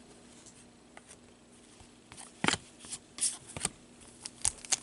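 Trading cards being handled and flipped through: scattered light clicks and rustles, starting about two seconds in.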